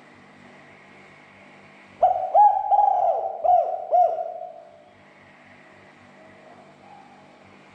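Spotted dove (tekukur) cooing: one phrase of about five arched notes, starting about two seconds in and fading out before the five-second mark, over a faint steady hum.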